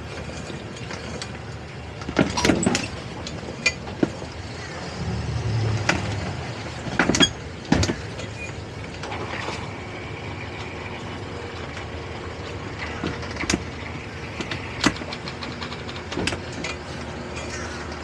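Twin Suzuki outboard engines idling as the boat maneuvers slowly, a steady low hum that swells briefly about five seconds in. Scattered sharp clicks and knocks sound over it.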